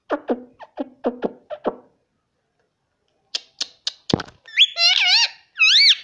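Indian ringneck parrot calling: a quick run of short, falling chirps, a pause, a few clicks and one sharp call, then wavering, warbling whistles that rise and fall near the end.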